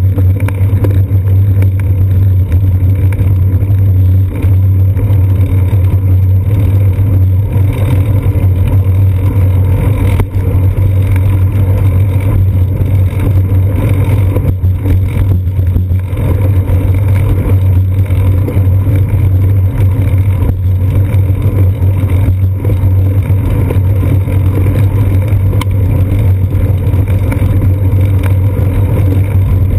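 Loud, steady low rumble of riding a bicycle along a concrete sidewalk, picked up by a GoPro Hero 2 clamped to the seat post: wind and road vibration through the camera housing.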